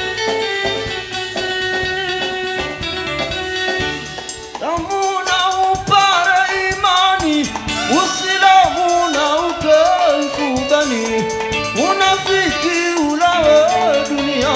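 Live toirab band music from a Comorian celebration. For about four seconds the band plays steady instrumental lines alone. Then a man's singing voice comes in over it, with long, bending, ornamented notes.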